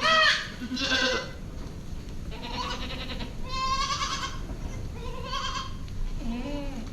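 Boer goats bleating: about six separate calls from several animals, the loudest right at the start and a lower-pitched one near the end.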